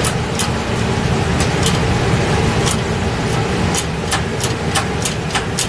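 Hand-pumped hydraulic shop press at work: about a dozen short sharp clicks, unevenly spaced, from the pump handle and ram as a wrist pin is pressed into the piston and rod. A steady low hum runs underneath.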